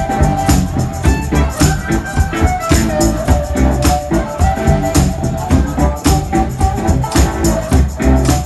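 Amplified harmonica played into a microphone, holding and changing notes in a blues-rock jam over a steady beat with shaken percussion.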